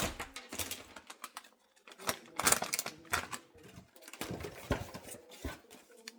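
Blind-box packaging being handled and opened: rapid crackling and rustling in several bursts, with a few sharper clicks.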